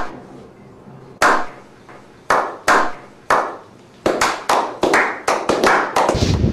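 A slow clap: a few men's hand claps, each trailing off in an echo. The claps come about a second apart at first, then pick up speed from about four seconds in to roughly four a second.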